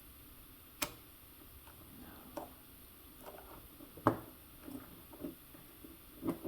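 Scattered small clicks and taps of RC excavator-style track links and retaining clips being handled and fitted by hand, a sharp click a little under a second in and the loudest tap about four seconds in.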